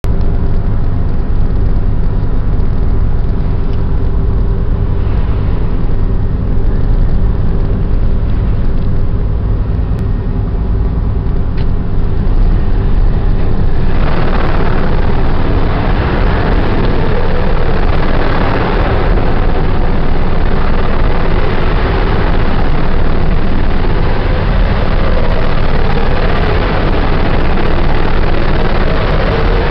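Steady low drone of a ship's machinery running, with a constant hum through the first half. About halfway through, a louder rushing noise joins it and carries on.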